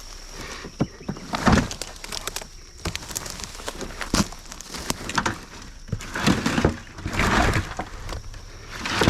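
Footsteps crunching through dry brush, with twigs and dead stems snapping in uneven bursts.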